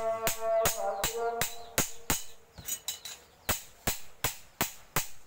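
Hand hammer striking a sickle blade on an anvil in a steady rhythm, about three blows a second, with a metallic ringing over the first blows.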